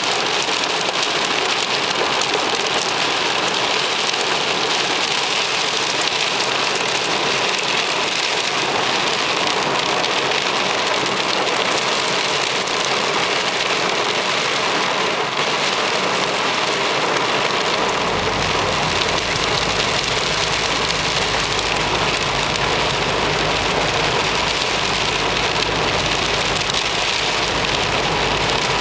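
Heavy rain and hail drumming steadily on a car's roof and windscreen, heard from inside the cabin. About two-thirds of the way in, a steady low rumble joins it.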